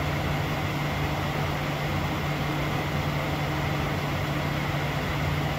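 Steady cockpit noise of a jet aircraft cruising at about 40,000 feet: an even rush of noise with a constant low hum.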